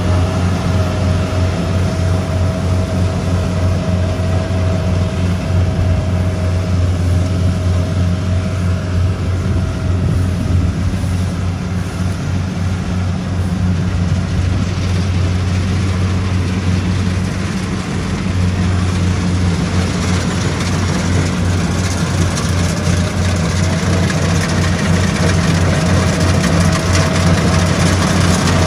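Tracked rice combine harvester running steadily under load while harvesting, its engine droning low with a higher whine from the machinery that fades midway and comes back near the end.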